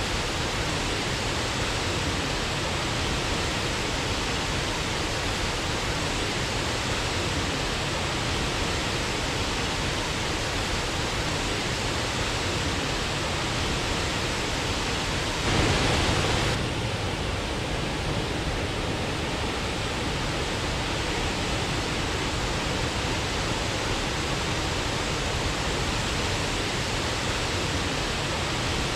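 Steady rushing of a waterfall, with a brief louder surge about halfway through.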